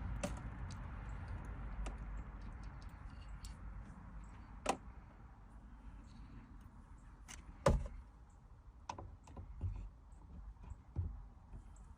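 Scattered light clicks and knocks of a small metal window latch and a clamp being handled and pressed onto the glass. Two sharper knocks stand out, about a third and two thirds of the way in, over a low rumble that fades in the first few seconds.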